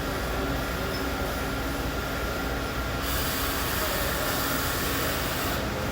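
CNC Swiss lathe and its auxiliary equipment running with a steady low hum and a faint steady tone. About three seconds in, a loud hiss starts, then stops shortly before the end.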